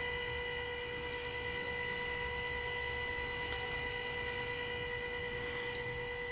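Water from a plastic watering can's rose showering onto the leaves of chile and tomato plants, over a steady high-pitched hum that holds one pitch throughout.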